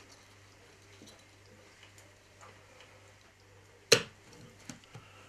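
A single sharp plastic click about four seconds in as the cap is pressed onto a small bottle of nail polish remover, with a fly line trapped in the bottle's neck. Around it, faint ticks of fingers handling the bottle and line.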